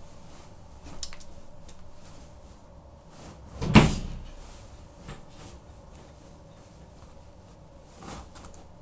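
Caterpillar boots stomping on a bedcover laid on the floor: a few thuds, the loudest a little under four seconds in, with weaker ones about a second in and near the end.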